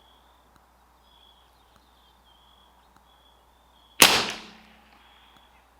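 A single .22 LR rifle shot from a CZ 457 bolt-action rimfire, firing Lapua Center-X ammunition, about four seconds in, with a short tail that dies away in under a second.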